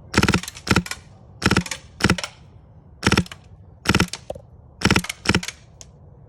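Polarstar Fusion HPA airsoft gun firing short bursts of a few quick shots each, a sharp clicking crack with every shot. The bursts come in pairs about half a second apart, eight in all. The engine is tuned for quiet 'stealth mode' shooting.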